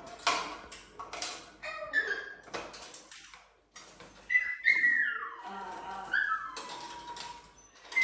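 Short bark-like calls in the first half, then a sulphur-crested cockatoo whistling, with notes that slide up and down in pitch.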